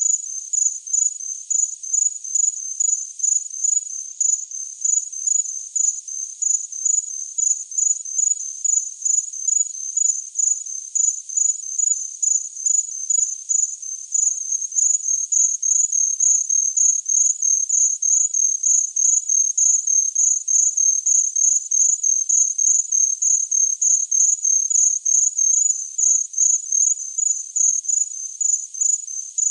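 A cricket chirping in a steady, even rhythm of short, high chirps, about two a second.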